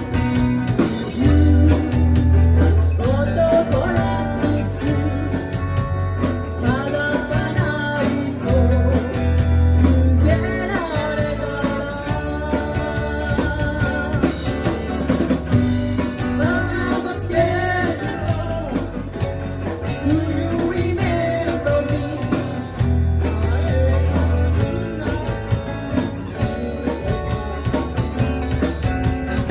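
A live band playing a song: a sung vocal over guitar, bass and drums.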